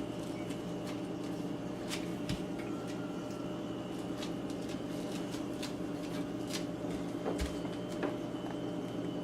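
Scattered light clicks and taps of items being handled in an open refrigerator, over a steady low hum.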